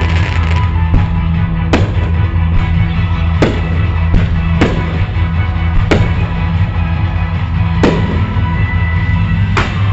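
Fireworks show with its loud rock-style music soundtrack playing throughout, over which sharp firework bangs go off every second or two, about six in all.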